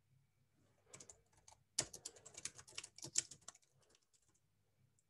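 Typing on a computer keyboard: a quick run of keystrokes from about a second in, thickest between two and three and a half seconds, then a few lighter keystrokes near the end.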